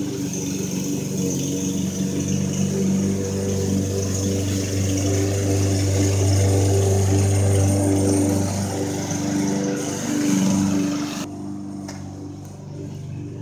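An engine running steadily, a hum that swells and eases a little; the hiss above it drops away sharply about eleven seconds in.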